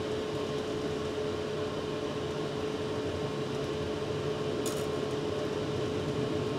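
Steady background hum and hiss with a constant high-pitched tone; a brief faint click about four and a half seconds in.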